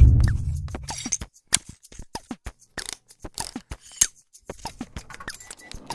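Motion-graphics intro sound effects: a deep low boom right at the start, fading over about a second, then a quick, irregular string of sharp clicks and short downward-falling blips.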